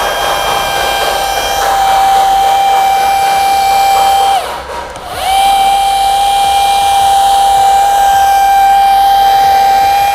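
Corded electric polisher running with a steady high whine as it scrubs a foamed fabric car seat. About halfway through, the motor briefly winds down and then spins back up to speed.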